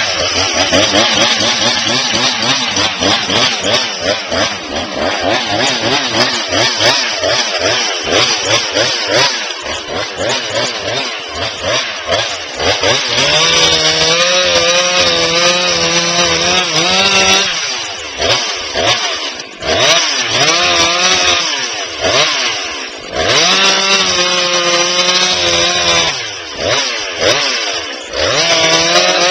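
Two-stroke chainsaw running loud, its engine speed wavering up and down at first. It is then held at high revs in several steady runs, with the pitch dropping between them.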